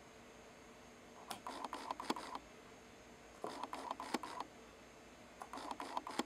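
Quiet clicking and tapping from a small magnet on a wooden dowel being handled on a tabletop, in three short bursts about a second long each, as it is moved toward and away from a wire coil.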